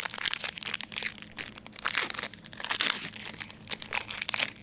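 Foil trading-card pack wrapper crinkling and crackling as it is handled and opened.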